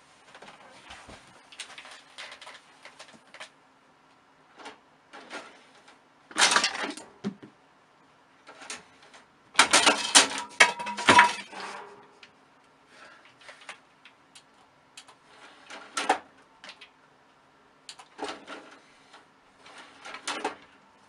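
A cat grabbing and climbing a cloth curtain: rustling and light clatter, with a short loud burst of clicking about six seconds in and a longer, louder one around ten to eleven seconds in.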